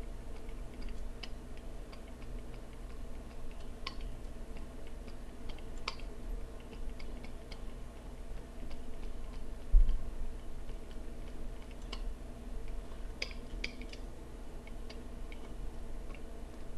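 Scattered light clicks and taps of computer input devices over a steady low hum, with a single low thump about ten seconds in.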